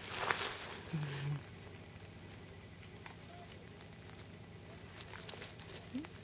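Faint rustling and scattered light ticks, with a short noisy rustle at the very start. About a second in comes a brief, low, flat hummed "mm" from a person.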